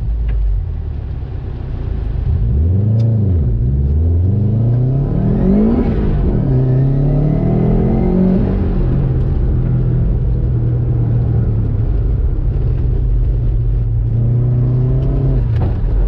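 Turbocharged Subaru Impreza GC8's flat-four engine heard from inside the cabin, pulling hard under acceleration. The revs climb and drop twice, as with gear changes, then hold steady for the second half.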